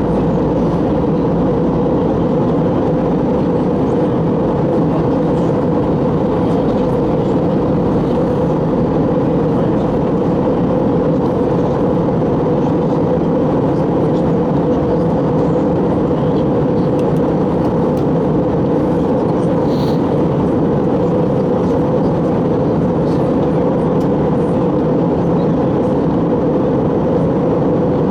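Steady cabin noise inside an Airbus A321 in flight: the even hum of the jet engines and rushing air.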